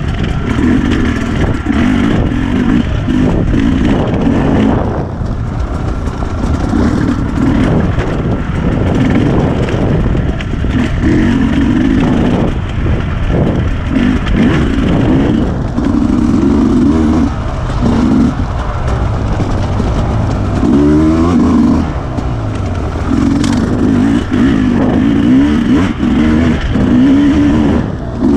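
Enduro dirt bike engine under hard riding, revving up and down as the throttle is worked over rough rocky ground, with a clear rise in pitch about two-thirds of the way through as it accelerates.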